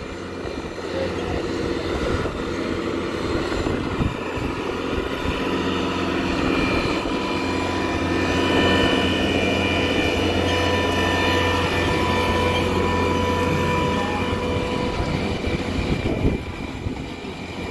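A large engine drones steadily with a constant pitch. It grows louder toward the middle and then slowly eases off, as it passes by.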